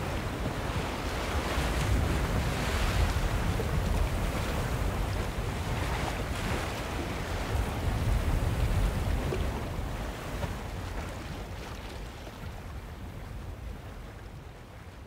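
Ocean surf breaking and washing ashore with wind, rising and falling in swells and gradually fading out near the end.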